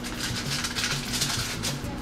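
Background music with a steady low repeating pattern, over irregular crackling rustles of aluminium foil and its cardboard box being handled.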